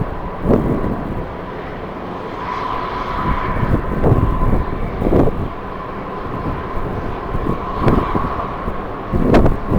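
Jet airliner engines whining at a steady pitch that swells and eases, with strong wind gusting against the microphone several times.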